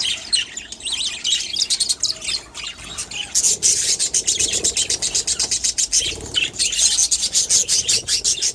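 Budgerigar chick chirping in rapid high-pitched peeps, busier and quicker from about three seconds in, several chirps a second.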